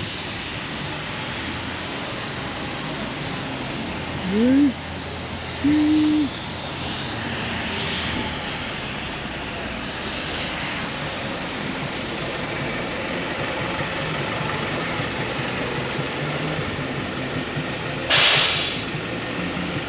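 Steady traffic noise of passing vehicles. Two short loud tones come about four and six seconds in, the first sliding upward, and a loud short hiss comes near the end.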